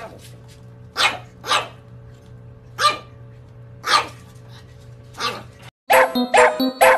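Pug puppy barking: five short, sharp yaps about a second apart. Near the end, a cut brings in a different quick, rhythmic pitched sound, about three a second.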